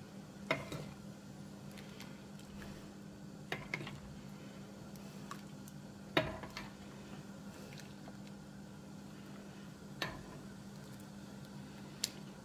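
A ladle clinking and knocking against a pot while scooping cooked quince pieces, about six short sharp clinks spread out over a low steady hum.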